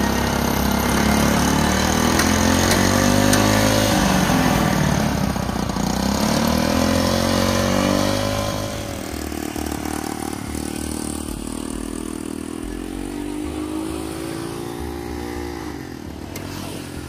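Small engine of a mini tractor revving up and down under load as it tows a school-bus van. Its pitch rises and falls several times, and it is louder in the first half before easing off.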